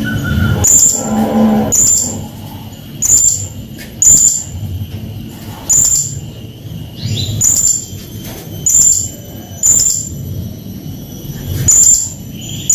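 Blue-crowned hanging parrot (serindit) giving short, shrill, very high-pitched calls, repeated about once a second.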